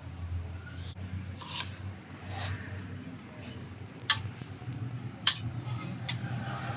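Light clicks and handling noises of small hand-held parts, with two sharp clicks about four and five seconds in, over a steady low hum.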